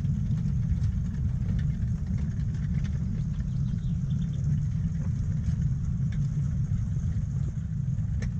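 Steady low rumble of a 7¼-inch gauge miniature train running on its track, with faint scattered clicks.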